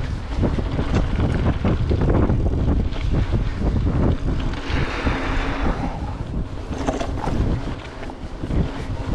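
Wind buffeting the microphone over a steady low rumble, with scattered knocks and rattles and a brief hissing rush about halfway through.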